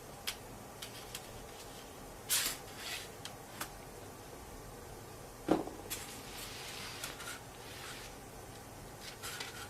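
Scattered light clicks and taps of small tools handled at a repair bench, with a short scraping rustle about two seconds in and a sharper knock about five and a half seconds in.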